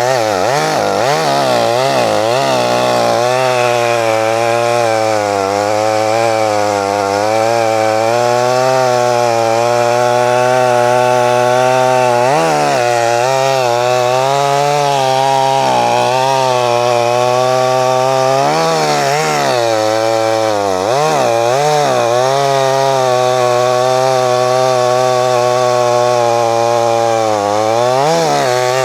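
Small two-stroke chainsaw running at full throttle, cutting logs off tree stumps. Its engine pitch sags and recovers several times as the chain bites into the wood.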